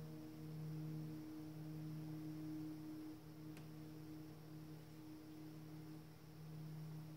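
Access Virus TI2 synthesizer holding a low, pure-toned drone that swells and dips about once a second while slowly fading.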